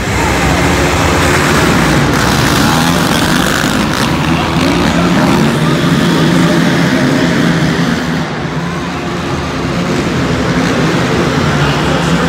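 Several ATV engines running hard together as the quads race off the start and around a dirt track, the note dipping briefly about eight seconds in.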